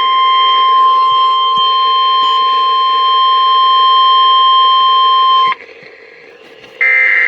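Weatheradio Canada's 1050 Hz warning alarm tone, a loud steady beep over radio hiss, cuts off abruptly about five and a half seconds in, leaving faint static. About a second later a loud buzzy data burst begins: the coded header of the next alert.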